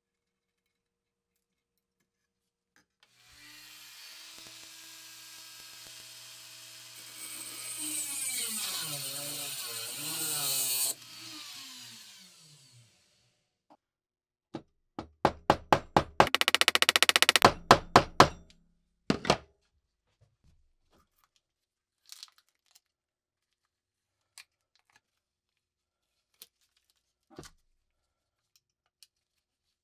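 A small power tool runs for several seconds, gets louder partway through, then cuts off and winds down. Next, a ball-peen hammer peens the hinge pin of a vintage squeeze lighter against a steel block: a few separate taps, then a quick run of strikes. A few faint clicks follow.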